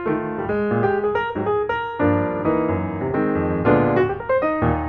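Background music played on piano, a quick run of struck notes and chords.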